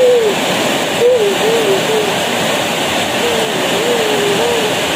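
Heavy tropical rain pouring steadily on trees and roofs, a dense even hiss. Over it, a faint voice-like call glides up and down in short groups of two or three, a few times.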